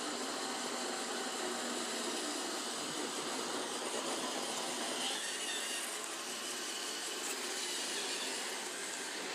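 Roomba robot vacuum running: a steady whir from its motor and brushes.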